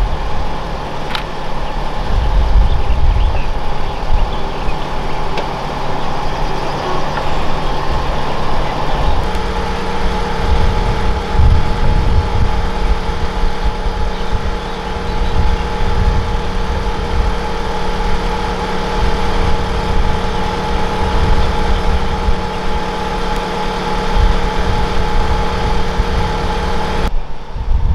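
Airbus H145 D3 helicopter's twin turboshaft engines running steadily with the rotor turning on the ground: a constant turbine whine over a heavy low rumble and rotor beat. The whine shifts to a slightly different pitch once, about nine seconds in.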